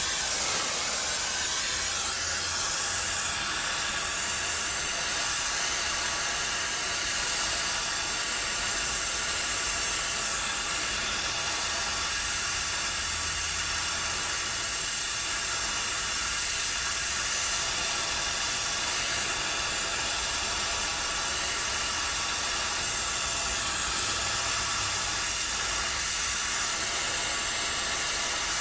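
Handheld soldering torch flame hissing steadily as it heats a copper refrigerant line joint for soldering.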